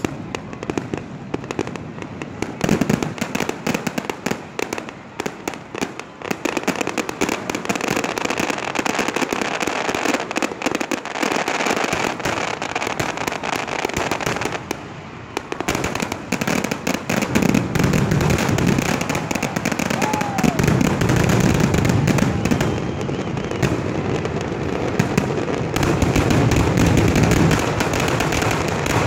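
Fireworks display: a rapid, dense barrage of bangs and crackles. It gets louder a little past halfway, with heavier low booms.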